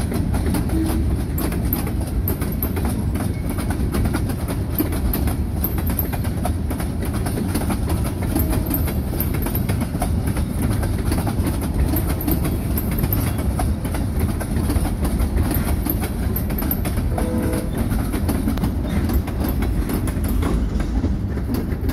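Freight cars (gondolas, tank cars and a covered hopper) rolling past on steel wheels: a steady loud rumble with clickety-clack as the wheels cross the rail joints.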